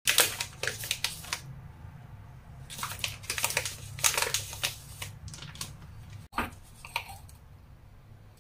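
A plastic packet of powder crinkling and rustling in short, irregular bursts as it is handled and the powder is shaken out over pork ribs in a bowl, followed by two sharp clicks near the end.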